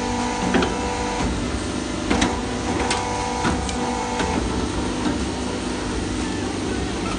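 CNC tube hole-punching machine running with a steady hum. A motor whine comes and goes, and six sharp knocks of punch strokes fall over the first five seconds, each a fraction of a second to about a second apart.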